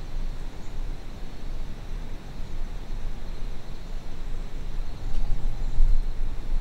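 Low rumble on the camera's microphone, swelling about five seconds in as the camera is moved, with a faint steady high tone behind it.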